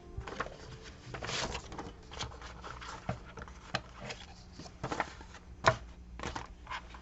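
Hands handling paper and craft supplies on a tabletop: a brief rustle of paper about a second in, then scattered light clicks and taps, the loudest a sharp tap near the end.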